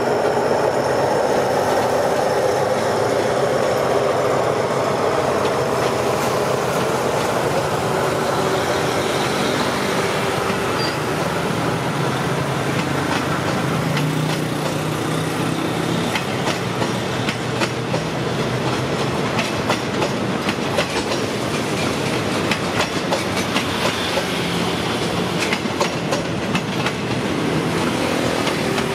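Diesel-hauled passenger train pulling out: the locomotive's engine drones at first and fades as it moves off, then the carriages roll past with their wheels clicking over the rail joints, the clicks coming thicker in the second half.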